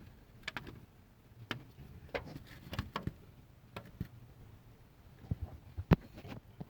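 Scattered light clicks and knocks, about a dozen of them, the sharpest near the end: small tools or parts being handled and set in place.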